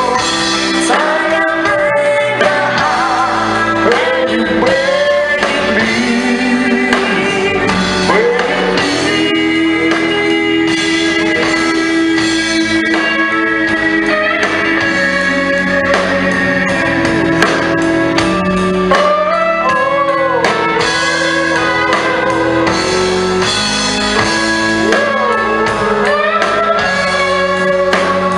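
A song: a voice singing a melody over full instrumental backing.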